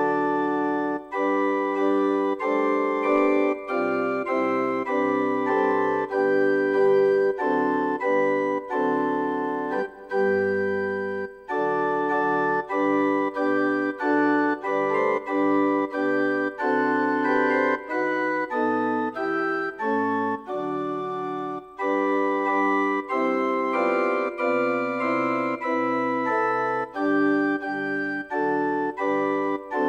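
Church organ playing a piece in full chords, each chord held and then briefly released, with the bass notes moving beneath.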